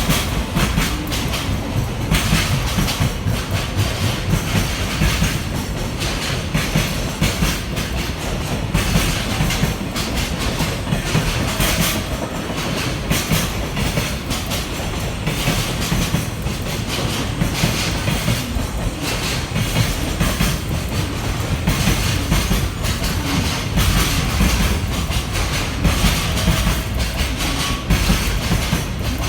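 Freight train hauled by an EF210 electric locomotive running past, a steady heavy rumble with its freight wagons' wheels clicking continuously over the rail joints.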